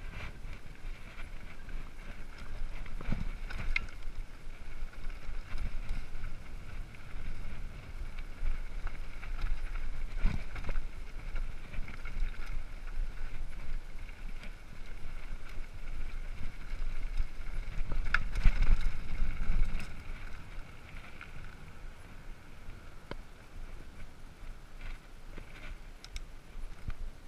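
Mountain bike rolling down a dry rocky single track, heard from a handlebar-mounted camera: wind buffeting the microphone over tyre and trail noise, with the bike rattling and knocking sharply over bumps a few times. It goes quieter near the end as the bike rolls out onto asphalt.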